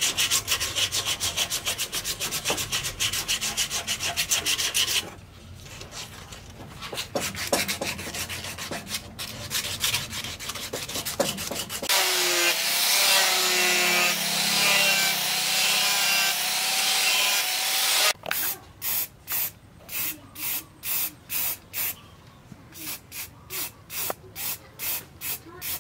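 Rapid rhythmic hand scraping on the cleaver's wooden handle, easing off after about five seconds. About halfway through, an angle grinder with a sanding disc runs against the steel blade for about six seconds, its motor whine wavering. Then comes a series of short, evenly spaced hissing strokes that quicken near the end.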